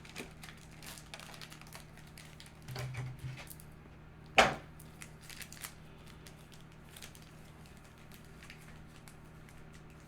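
Cards and packaging being handled on a table: light crinkling and small scattered clicks, with one sharp knock about four and a half seconds in.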